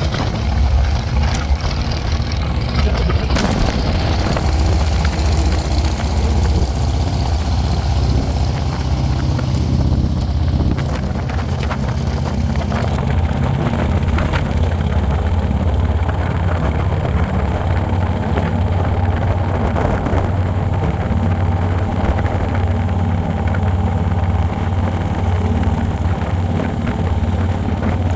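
Harley-Davidson motorcycle engine running steadily under way, a constant low drone with a noisy rush over it.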